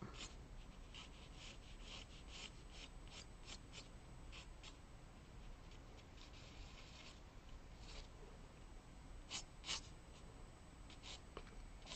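Faint scratching of an HB pencil on watercolour paper: short sketching strokes drawing a circle, with a longer rubbing stroke about halfway through.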